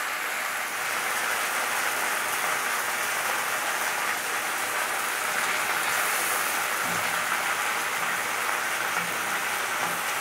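Sliced onions and green chillies sizzling steadily in hot mustard oil in a steel kadai.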